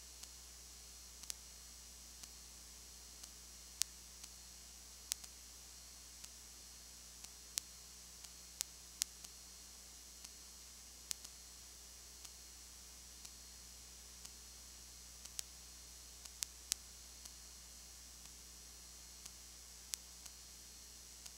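Recording noise only: a faint steady hiss and low hum, broken by sharp clicks at irregular intervals, roughly one or two a second, a few of them louder. No sound of the game itself is heard.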